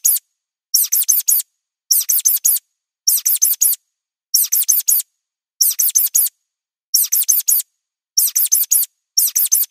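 Mouse squeaking sound effect, looped: tight groups of four quick high-pitched squeaks, each dropping in pitch, repeating about every 1.2 seconds with dead silence between groups.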